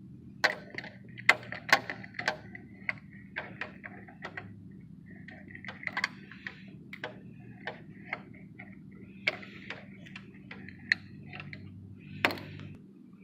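Irregular metallic clicks and clinks of hand tools worked against metal, some in quick clusters, over a steady low hum that cuts off near the end.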